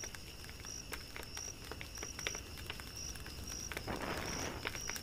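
Night-time insect chorus: steady high-pitched cricket chirping that pulses on and off, with scattered small clicks. A brief hiss of noise comes about four seconds in.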